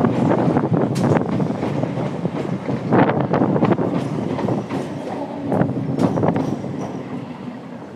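Kolkata suburban EMU train running in over the track: a steady wheel rumble with repeated clanks as the wheels cross rail joints, getting quieter near the end.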